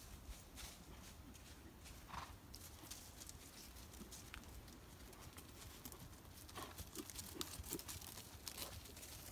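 Faint hoofbeats of a ridden Thoroughbred gelding on sandy dirt footing: irregular soft thuds and clicks. They grow a little louder and closer in the last few seconds as the horse passes by.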